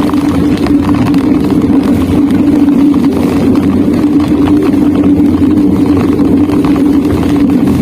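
Train running in heavy rain, heard from inside the carriage: a steady loud hum over a low rumble, with many small ticks scattered through it.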